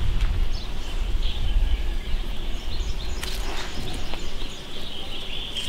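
Outdoor ambience: small birds chirping over a steady low rumble, with a brief click about three seconds in.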